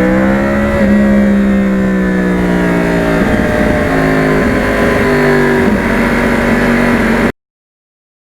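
2009 Yamaha R1's crossplane inline-four engine running loud, its note sinking slowly for about three seconds, then stepping to new pitches about three and five and a half seconds in. It cuts off suddenly near the end.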